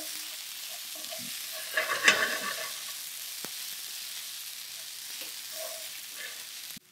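Chopped mushrooms, pumpkin and chestnuts sizzling in a frying pan as they are stirred with a wooden spoon, with a louder scrape of the spoon in the pan about two seconds in. The sizzle cuts off abruptly just before the end.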